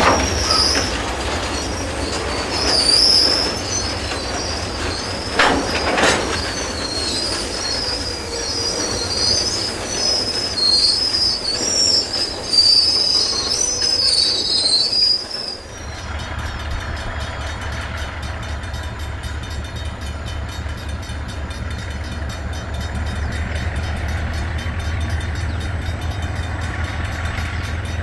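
Milk tank wagons rolling slowly on curved track, their wheels squealing in a high, wavering screech over a rumble, with a knock about six seconds in. About halfway through this cuts to the low, steady rumble of an approaching KiwiRail diesel locomotive hauling tank wagons.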